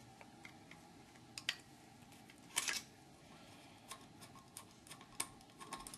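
Faint, scattered small clicks and ticks of a screwdriver and small metal parts as the two screws holding the vacuum advance unit are undone on a Bosch HEI distributor housing, one slightly louder click about two and a half seconds in.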